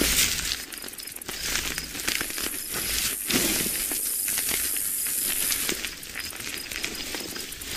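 Dung beetle sounds: irregular small clicks and scratchy crackling over a steady hiss.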